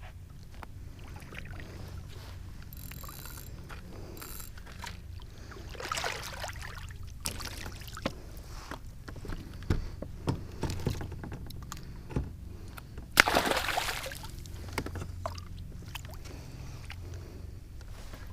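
Small knocks and clicks of fishing gear being handled on a kayak, over a steady low rumble of water and wind. About 13 seconds in there is a louder brief rush of noise.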